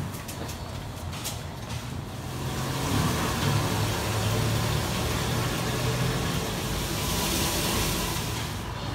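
Road traffic noise with a motor vehicle engine running in a low, steady hum, and a rush of hiss that swells about three-quarters of the way through.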